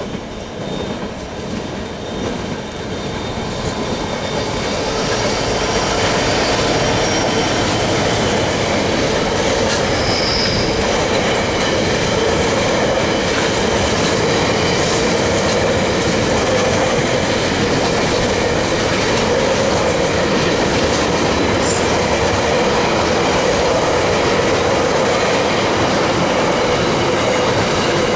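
Long freight train headed by three Pacific National NR class diesel-electric locomotives approaching and growing louder over the first six seconds or so, then its wagons rolling past with a steady rumble of wheels on rail.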